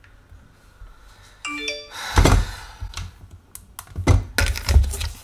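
A short electronic chime of tones stepping quickly downward, followed by several loud thuds and knocks as objects are handled and set down on a kitchen counter.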